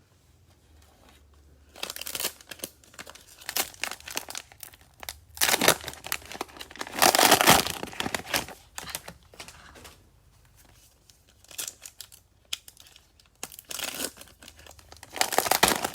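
Cellophane wrapper of a Mosaic football cello pack crinkling and tearing as it is opened by hand, in irregular crackly bursts that start about two seconds in and are loudest about halfway through.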